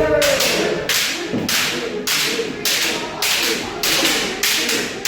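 Kendo practice: a quick run of bamboo shinai strikes and stamping footwork, about two a second, echoing in a hall, with a shouted kiai near the start.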